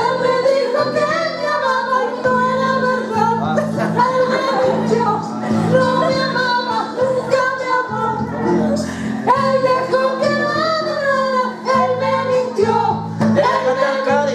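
A song playing: a voice sings a melody over sustained accompaniment.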